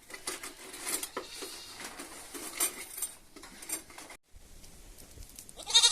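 Metal dishes and utensils clinking and knocking irregularly for about four seconds. Near the end a goat starts a loud bleat.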